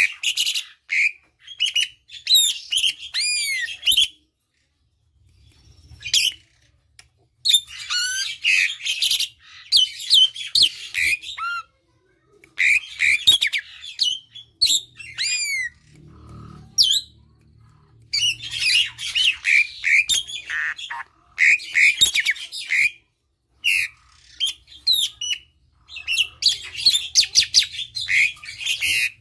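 Asian pied starling (jalak suren) singing a loud, varied song: bursts of rapid chatter and squawks mixed with arching whistles that rise and fall, broken by short pauses of a second or two between phrases.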